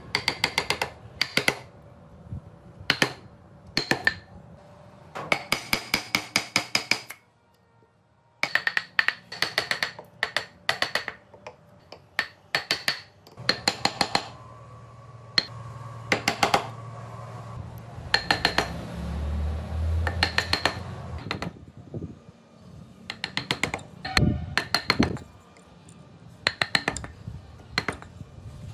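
Chisel being driven into wood with quick runs of light hammer taps, each tap ringing briefly, the runs broken by short pauses.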